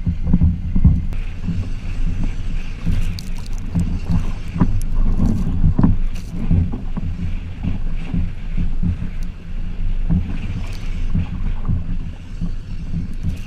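Pickup truck driving over beach sand, heard from a camera mounted on the kayak it carries: a steady low engine hum under rumbling wind buffeting, with irregular knocks and rattles as the truck bounces along.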